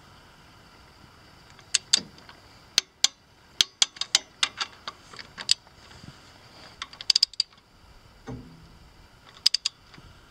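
Hand ratchet wrench clicking in short irregular runs as it is swung back and forth, tightening a bolt on the exhaust manifold of a Willys F134 engine. A duller knock comes about eight seconds in.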